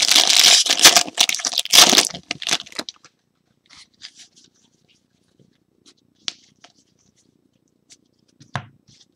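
Foil wrapper of a trading-card jumbo pack being torn open and crinkled for about two seconds, followed by a few faint clicks and taps as the stack of cards is handled.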